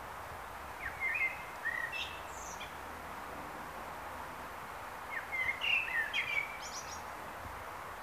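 Common blackbird (Turdus merula) singing two short song phrases, about a second and a half each, one near the start and one past the middle. Each phrase runs through quick notes and ends in a high twitter, over a steady background hiss.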